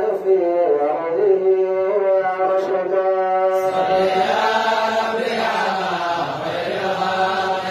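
A voice chanting a religious nasheed in praise of the Prophet, in long held, melodic notes over a steady low tone. The sound grows fuller about halfway through.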